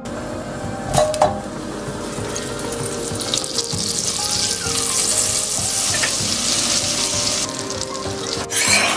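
Butter sizzling as it melts and foams in a hot stainless-steel pan, the sizzle building and staying strong; two short knocks about a second in, and a brief louder burst near the end.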